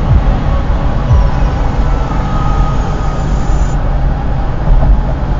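Steady low road rumble and tyre noise of a car cruising at about 70 km/h, heard from inside the cabin.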